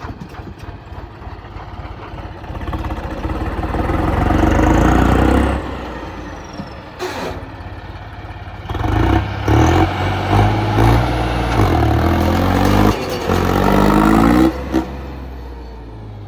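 Tractor diesel engine revving hard in two surges, the second longer and louder, its pitch climbing before it falls back.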